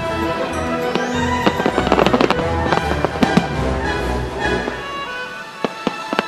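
Aerial firework shells bursting with sharp bangs and crackling, densest about two and three seconds in. The show's music plays underneath.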